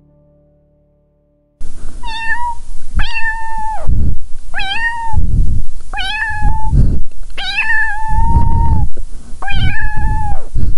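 Domestic cat meowing six times, each meow rising at the start and then holding level, the fifth one long and drawn out. The meows begin after about a second and a half of near silence.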